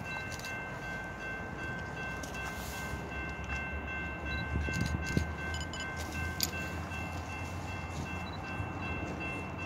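Distant freight train approaching behind diesel locomotives: a steady low rumble, with a few steady high tones through it and a couple of brief knocks around the middle.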